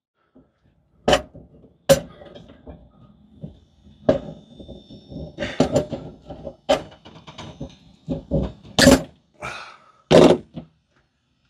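Hand cable cutters working through a thick 50-amp power cable at a metal junction box: a run of separate thunks and clicks with pauses between them, the two loudest and longest strokes near the end.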